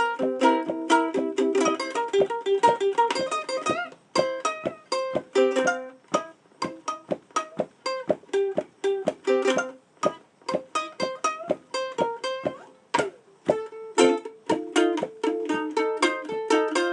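Acoustic plucked-string instrument playing a blues tune with no singing: strummed chords, then a stretch of sparse single picked notes from about four seconds in, with chords returning past the middle of the passage.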